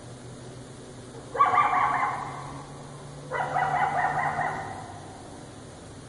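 Coyote calling twice, about two seconds apart. Each call starts abruptly and lasts about a second, and the second fades out more slowly.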